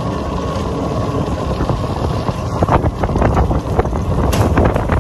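Wind buffeting the microphone while riding on an open moving vehicle, over a steady rumble with frequent rattles.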